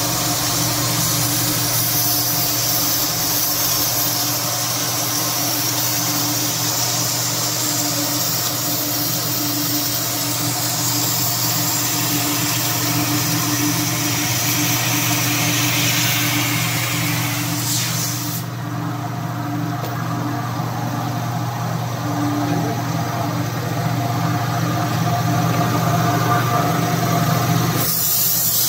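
Machinery of a twin-screw puffed-snack extrusion line running steadily. A constant motor hum carries a loud high hiss over it, and the hiss falls away about two-thirds of the way through.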